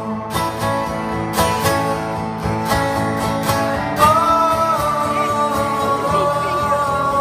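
Acoustic guitar strummed in a steady rhythm, played live. About halfway through, a single long note is sung and held over the strumming.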